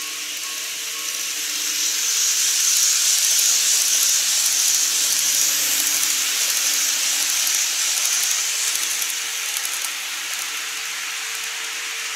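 N-gauge model train, a Greenmax Keio 8000 series set, running past on plastic track: an even rushing whir of motor and wheels on rails, mostly high in pitch, that swells about two seconds in as the train draws close and fades again near the end.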